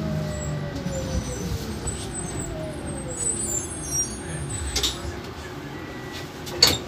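Marcopolo Attivi Integral electric bus riding, heard from inside the cabin: the electric drive's whine glides down in pitch over the first few seconds as the bus slows, over steady road and body rumble. Two short sharp sounds come about five seconds in and just before the end, the second louder.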